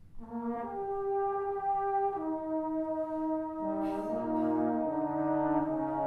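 Brass band entering together just after a near-quiet pause, playing held chords that change every second or two.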